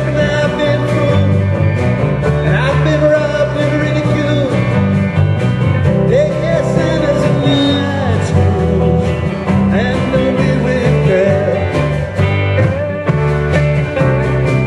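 Live rock band playing an instrumental passage: a lead line with bending notes over bass and steady drums.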